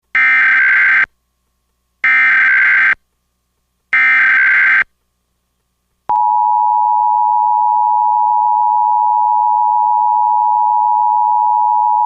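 Emergency Alert System SAME header: three data bursts of about a second each, a harsh digital screech. About a second after the third burst, a single steady attention tone begins and holds, the alarm that precedes a spoken EAS warning.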